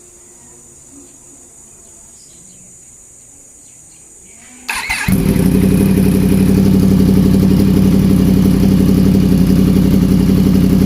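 Yamaha MT-10's crossplane inline-four, fitted with an SC Project aftermarket exhaust, is started about four and a half seconds in: it catches suddenly and settles straight into a loud, steady idle. Before it starts there are only faint bird chirps.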